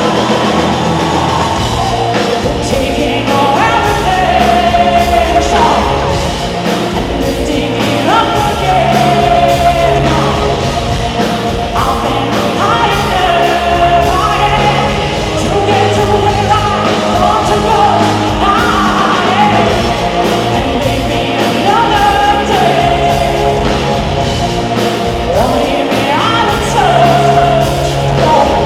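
Live electronic rock song with a woman singing over a steady drum beat and bass, played loud through a club's sound system.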